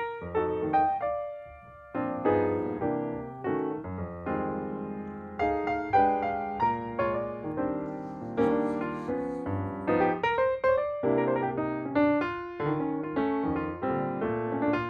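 Background music: a solo piano playing a flowing melody of quick notes, each ringing and fading.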